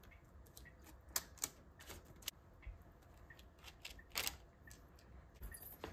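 A pastry brush dabbing and dragging marinade over chunks of pumpkin on a parchment-lined baking tray: faint, irregular light taps and clicks, a few sharper ones about a second in and around four seconds in.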